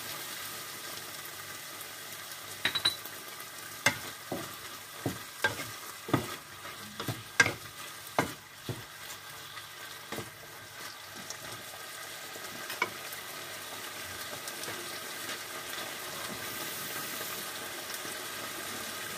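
Chicken strips sizzling in soy sauce in a nonstick frying pan while a spatula stirs them. For several seconds the spatula knocks sharply against the pan, a dozen or so times, then the steady sizzle carries on.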